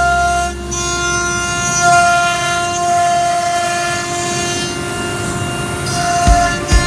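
Background music: sustained, horn-like held chords with no beat, then a steady thumping beat coming in near the end.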